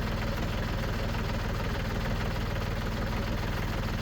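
Compact tractor's diesel engine running steadily with an even low pulsing.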